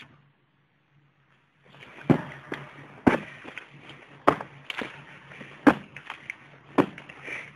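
Near silence for about a second and a half, then a run of sharp knocks, roughly two a second and unevenly spaced, over a faint steady low hum.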